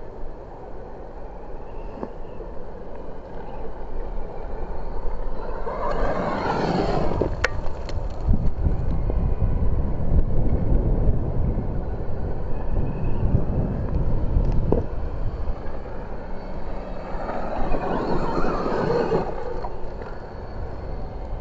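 Losi Promoto-MX electric RC dirt bike's motor whining past twice, its pitch falling as it goes by, with a low rumbling noise between the passes.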